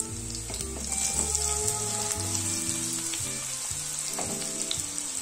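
Boiled sweet potato and potato cubes tipped into hot oil in a kadhai, sizzling in a tempering of cumin, green chillies and curry leaves; the sizzle grows louder about a second in, with a few soft knocks as the pieces land.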